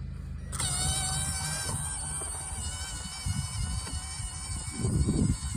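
A steady high-pitched buzz with many overtones that switches on abruptly about half a second in, with low thuds and rumbling under it near the end.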